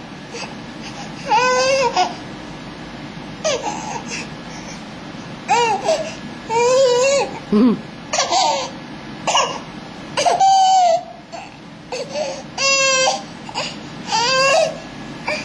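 A series of short, high-pitched, cough-like vocal cries, a dozen or so, each under a second long and coming about once a second.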